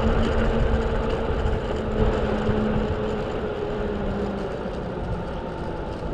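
Mototec 600 W electric skateboard rolling on asphalt: a steady motor whine over the low rumble of its airless rubber tyres, the whine slowly falling in pitch as the board slows.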